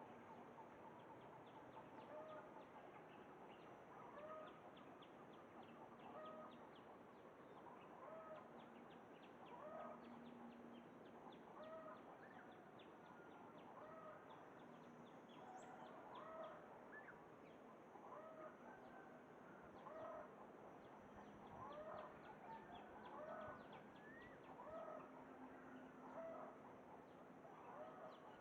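Zebra dove (merbok) cooing faintly: short soft coo phrases repeated about every second or so.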